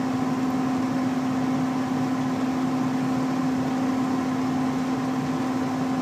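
Gas furnace running with its burners lit and the main blower fan on: a steady hum with a constant low tone over a rush of air.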